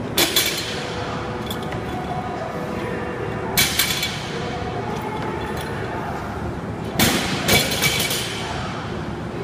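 Barbell loaded with bumper plates dropped onto a rubber gym floor three times, about every three and a half seconds, each drop a metallic clang with a few quick bounces; the last drop bounces the most. Steady background noise underneath.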